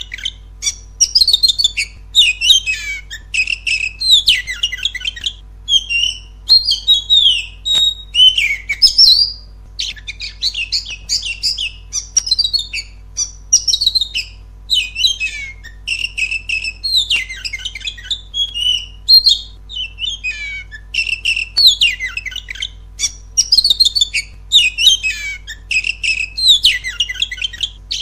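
Oriental magpie-robin (kacer) singing: a rapid run of varied whistles, trills and harsh notes, in phrases of a second or two broken by short pauses, over a faint steady low hum.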